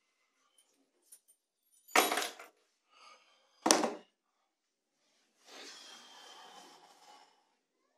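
Two sharp metallic clattering knocks, about two seconds in and again near four seconds, like keys and small hard objects put down on a wooden table. A softer rustling follows for about two seconds near the end.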